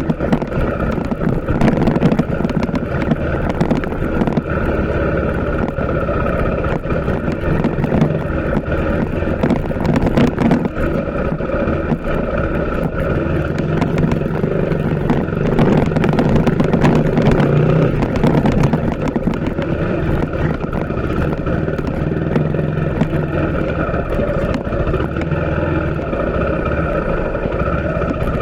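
TVS Apache RTR 160 4V motorcycle's single-cylinder engine running steadily on the move, under a continuous rush of riding noise. It gets a little louder a little past halfway.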